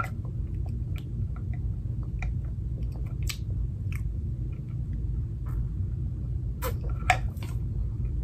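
Someone sipping a drink through a straw from a plastic tumbler: soft sucking, swallowing and small mouth clicks over a steady low hum. A few sharper clicks come near the end.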